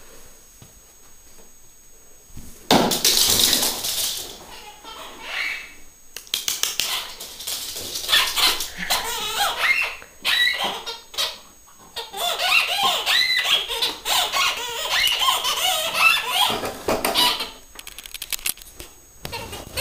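A pet's new squeaky toy being squeezed over and over, giving quick runs of high squeaks, with a loud rustling burst about three seconds in.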